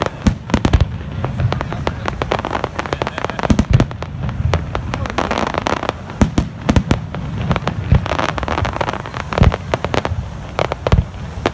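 Fireworks display: a fast, irregular run of sharp bangs from bursting shells, a few much louder than the rest, over a steady crackle and rumble.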